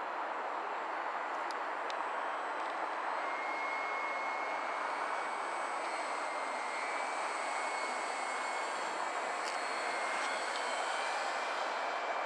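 Motor and propeller of a HobbyKing Pietenpol Air Camper V2 radio-controlled model plane in flight: a steady rushing sound with a thin high whine that comes in about three seconds in and edges slightly higher.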